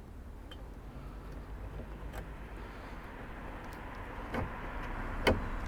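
A steady rushing noise that slowly builds, like a passing vehicle, with a few sharp knocks or clicks in the second half, the loudest just before the end.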